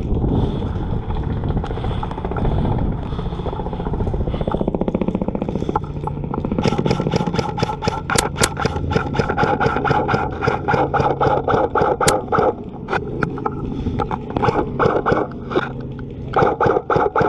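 Airsoft electric rifles firing full-auto bursts: runs of rapid clicking shots over a motor whine, starting about six seconds in and coming in short separate bursts near the end. Before that, a steady noisy rumble.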